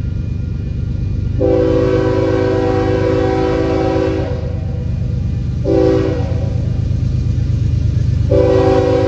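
Union Pacific diesel locomotive sounding its multi-note horn as it approaches: a long blast, a short blast, then another long blast starting near the end, over a steady low rumble of the train.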